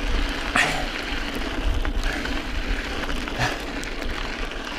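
Mountain bike rolling over a gravelly dirt trail: tyres crunching on loose stones and the bike rattling over a steady low rumble. There are two brief louder noises, about half a second and three and a half seconds in.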